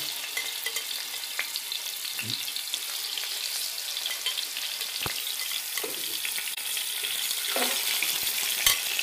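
Marinated fish pieces sizzling as they shallow-fry in hot oil in a nonstick frying pan, a steady hiss, with a few light knocks as more pieces are laid in from the bowl.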